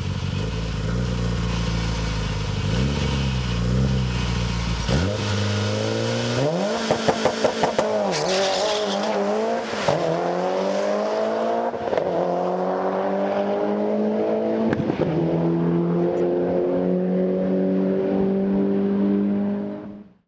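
Turbocharged Mitsubishi Lancer Evolution VIII 4G63 inline-four making a drag-strip pass. It holds steady revs on the line for about five seconds, then launches and accelerates hard, the engine note climbing and dropping back at each upshift. There are a few sharp pops around the early shifts.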